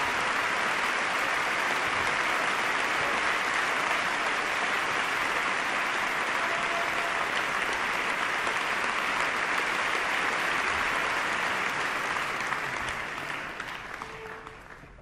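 Concert hall audience applauding steadily, the clapping fading away over the last two seconds or so.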